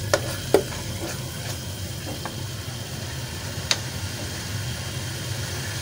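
Thick tomato chutney sizzling as it is fried on a high flame and stirred with a spoon. A few sharp clicks of the spoon against the pan sound over a steady low rumble.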